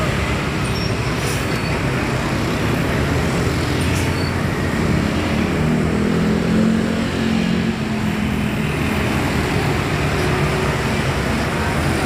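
Coach buses' diesel engines running as the buses move past at close range, over steady traffic noise. A low engine drone grows louder about halfway through.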